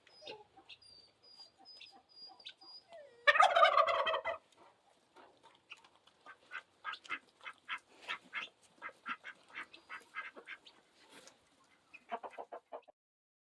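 A turkey gobbles once, a loud, rapid rattling call about three seconds in, followed by a run of short, faint clucks and clicks from the surrounding birds and a brief burst of calls near the end.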